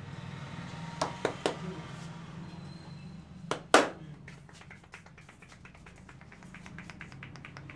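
Hands clapping against a person's head during a head massage: three sharp claps about a second in, then two louder ones around three and a half seconds, the second the loudest. These are followed by a fast run of light fingertip taps on the head.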